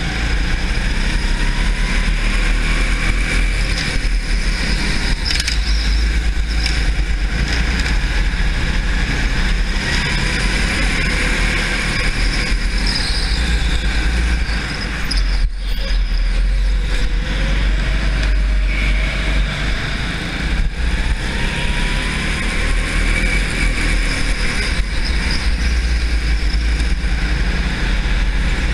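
Go-kart engine running hard at racing speed, heard from on board the kart, its pitch sliding up and down as the kart brakes and accelerates through the corners.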